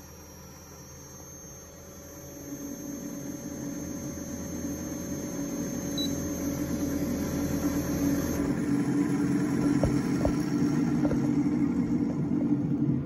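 Inverter air conditioner rotary compressor, driven from the outdoor-unit PCB on the bench, starting up with a hum that builds and grows louder from about two seconds in. A thin steady whine cuts off about eight seconds in.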